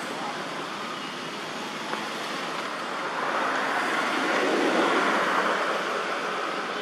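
Steady rushing outdoor background noise that swells for a few seconds in the middle and eases again.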